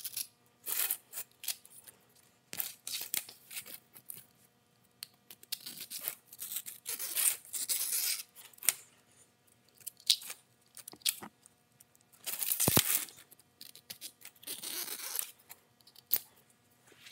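Utility knife blade dragged along the edge of window-screen mesh at the spline channel, cutting off the excess screen: a run of short, irregular scratchy strokes with a few sharp clicks in between.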